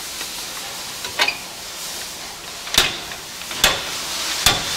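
Metal knocking: a steel bar striking a steel bracket under a pickup as the bracket is forced down to bend it. One light knock comes about a second in, then three sharp, ringing knocks under a second apart, over a steady hiss.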